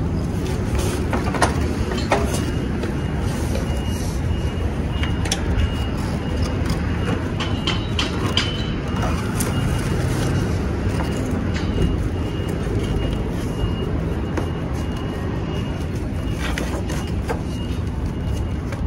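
Straps and a cardboard box being handled as the box is fastened tight to a bicycle's rear rack: scattered clicks and rustles over a steady low outdoor rumble.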